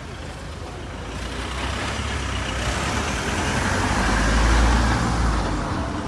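A motor vehicle driving past close by: low engine rumble and road noise building up, loudest about four and a half seconds in, then fading.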